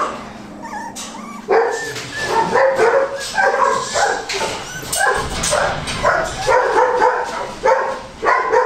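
Litter of young Goldendoodle puppies crying with many short, repeated calls, several a second, starting after a quieter first second or so.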